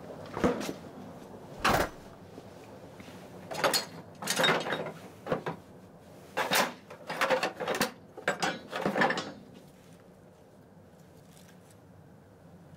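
Old tools and scrap metal clattering and knocking in a plastic bucket as they are rummaged through and an old rusty axe with a wooden handle is pulled out. About ten sharp clanks and knocks in the first nine seconds, some in quick pairs, then they stop.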